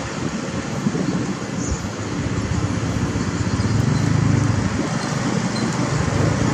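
Caterpillar 320D excavator's diesel engine running steadily as the machine works. Its note swells for about a second around the middle, then settles back.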